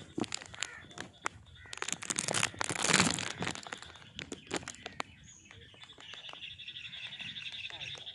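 Crackling and rustling clicks for the first five seconds, loudest about three seconds in. From about six seconds in, a bird trills steadily with a rapid high-pitched pulse.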